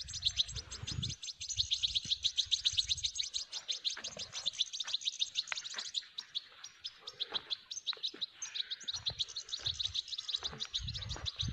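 European goldfinches calling: a fast, steady run of high twittering chirps that grows looser and more broken after about six seconds, with low rumbles of handling noise near the start and again about nine seconds in.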